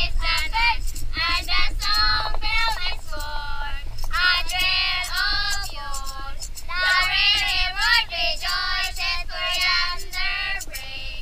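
Children singing together in high voices, with a steady low rumble underneath.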